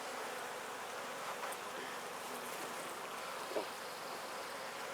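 Steady buzzing of many honeybees around an opened top bar hive, with one faint short tick about three and a half seconds in.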